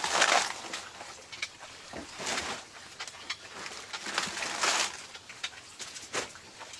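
Farm animals calling: three short, harsh, unpitched calls about two seconds apart, with scattered small clicks between them.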